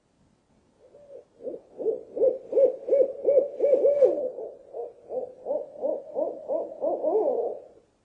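An owl hooting in a fast run of short notes, about three a second, each note rising and falling in pitch. The run grows louder over its first couple of seconds and stops shortly before the end.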